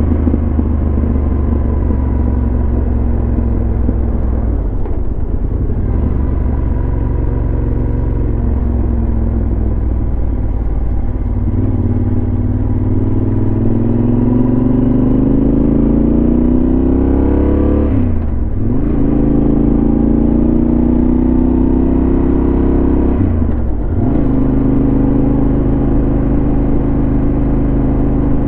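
Yamaha XT1200Z Super Ténéré's parallel-twin engine through a LeoVince SBK aftermarket exhaust, running steadily at first, then pulling up through the gears: the pitch rises, drops briefly at a gear change about 18 seconds in, rises again, dips at another shift about 24 seconds in, then holds steady.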